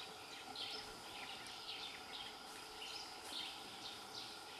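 Forest ambience: birds chirping in short, irregular notes, two or three a second, over a faint steady drone of insects.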